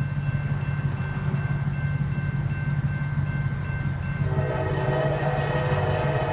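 EMD SD70 diesel locomotive approaching a grade crossing with a steady low rumble; about four seconds in its air horn comes on and holds.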